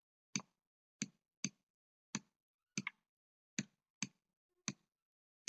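About nine short, sharp clicks, irregularly spaced roughly half a second apart, with a close pair near the middle: the input device tapping down for each stroke while the benzene ring is drawn line by line on a digital whiteboard.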